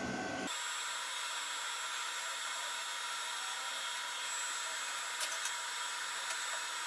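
A steady, even hiss with no low sounds in it, which starts abruptly and holds level throughout, with a couple of faint ticks about five seconds in.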